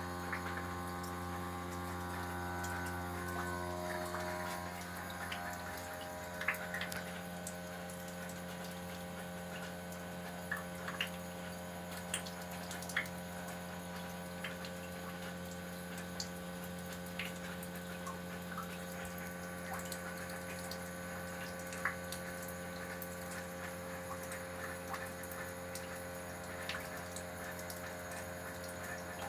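Haier air conditioner in its defrost cycle: a steady machine hum with several pitched tones, some of which drop out about four to six seconds in, while meltwater drips and ticks irregularly.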